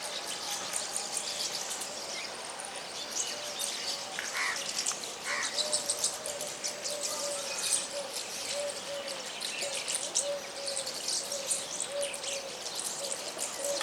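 A flock of small birds chirping and twittering, with many short high notes overlapping throughout. From about a third of the way in, a steady series of short, low, evenly pitched notes from one bird repeats under the chirping.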